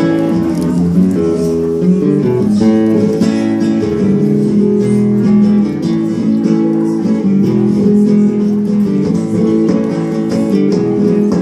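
Acoustic guitar played live: a steady, flowing stream of plucked notes with some strummed chords.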